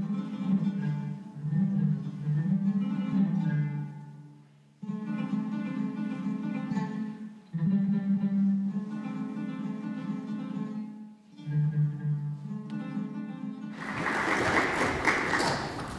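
Intro music on plucked acoustic guitar, in phrases with short breaks between them. Near the end the music stops and a loud, even noise takes over.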